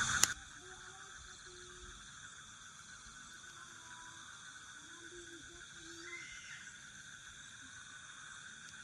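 Steady chorus of forest insects: several high, unbroken drones held at constant pitch. A sharp click right at the start.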